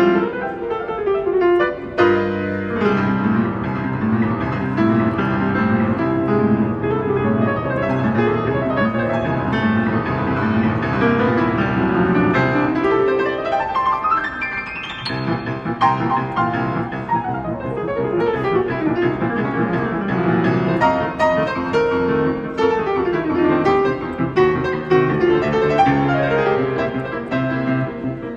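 Grand piano played with both hands, dense and busy, with a fast run climbing up the keyboard about halfway through.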